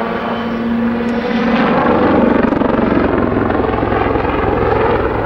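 Westland Lynx helicopter flying a display manoeuvre: a fast, steady chop of the main rotor blades with twin-turboshaft engine noise, swelling a little about two seconds in.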